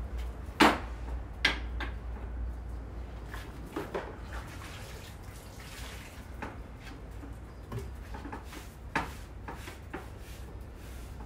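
Handling noise at a wooden worktable: scattered light knocks and clicks of bowls and utensils being moved and set down, over a steady low hum. The sharpest knocks come about half a second in and near the end.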